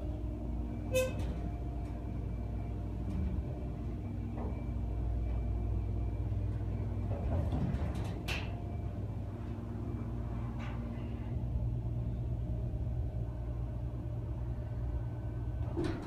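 Schindler elevator car riding up: a steady low hum and rumble with faint steady tones, a small click and short tone about a second in, and a sharper click about eight seconds in.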